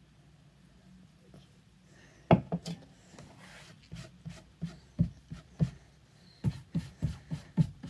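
A run of short, irregular clicks and soft knocks close to the microphone, starting about two seconds in and coming more often towards the end.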